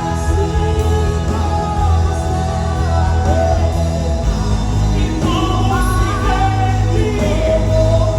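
Live worship music: a band playing with a singer's voice over it, a steady bass line that changes about four seconds in.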